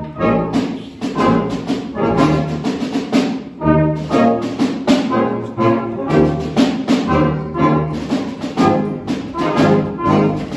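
Brass band playing a tune, with cornets, trombones and tubas sounding together.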